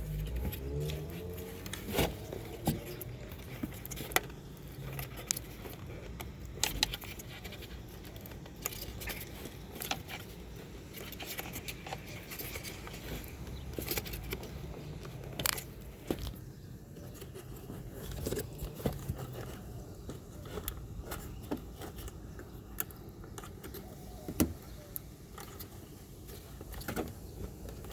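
Hands working at a car's taillight bulb socket and housing: irregular small clicks, taps and scrapes, with a few sharper knocks.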